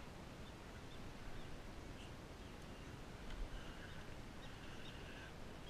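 Faint steady outdoor noise, with a few faint, short, high-pitched calls a little past the middle and again near the end.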